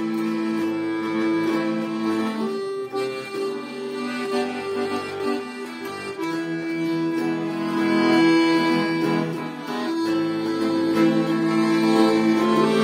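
Bayan (Russian button accordion) and acoustic guitar playing a rock song together, the accordion holding long chords that change every few seconds over the guitar.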